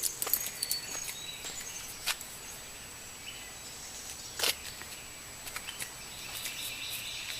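Quiet outdoor ambience with faint, high bird chirps and a few scattered clicks and rustles. The loudest is a single sharp click about four and a half seconds in.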